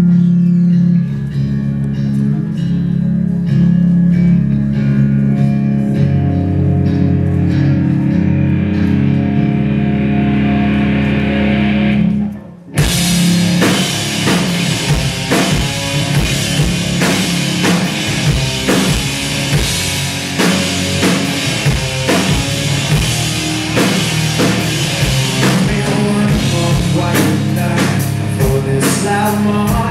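Live rock band playing: electric guitars ring out held chords, then after a brief break about twelve seconds in, the drums and full band come in.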